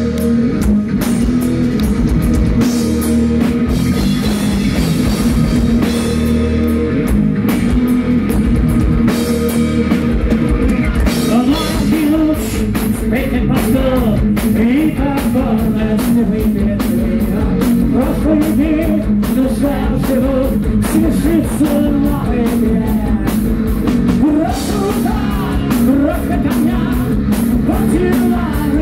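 Heavy metal band playing live: electric guitars, bass guitar and drum kit, with a male lead vocal coming in about a third of the way through.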